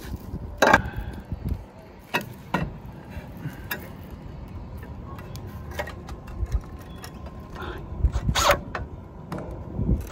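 Scattered clicks, knocks and clinks of a metal tile-roof bracket being handled and set against cement roof tiles and a timber batten, over a low rumble. The sharpest knocks come about a second in, around two and a half seconds, and near eight and a half seconds.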